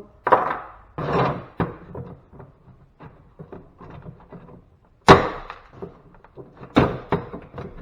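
A string of knocks and clatters as metal scrap parts are handled, pulled apart and set down on a work surface. The loudest knock comes about five seconds in, another near seven.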